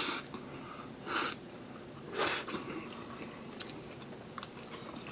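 A person eating spicy instant noodles: two short breathy slurps about one and two seconds in, then soft chewing with small mouth clicks.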